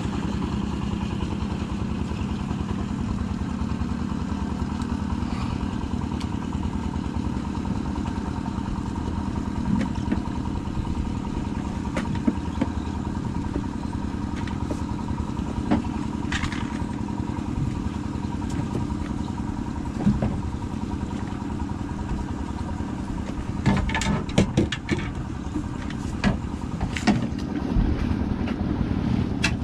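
Small fishing boat's engine running steadily, a constant low drone. A quick run of clicks and knocks comes near the end.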